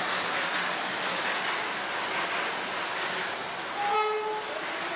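Century-old British-built narrow-gauge steam locomotive of the Darjeeling Himalayan Railway letting off a steady hiss of steam at the platform, with a short steady whistle blast about four seconds in.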